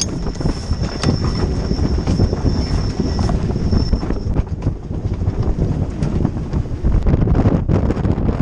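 Strong wind buffeting the microphone on a sailing yacht under way, over the rush of a choppy sea, with a few scattered knocks. A thin high steady whine sounds through the first four seconds, then stops.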